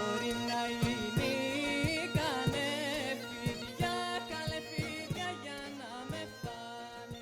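Sampouna, the Mykonian goatskin bagpipe, playing an ornamented melody over its steady drone, with a drum keeping a steady beat about twice a second. The music fades out toward the end.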